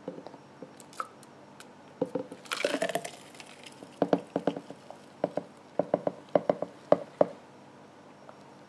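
Thick blended frappuccino being worked out of a Vitamix blender jar into a glass: a run of sharp knocks and clinks, with a brief squishy rush of the thick drink about two and a half seconds in and a quick series of knocks from about four to seven seconds in.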